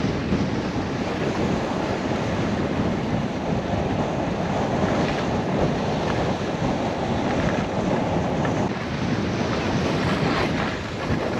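Wind rushing over the camera microphone while skiing downhill, mixed with the skis sliding over packed, groomed snow: a steady, loud rushing noise.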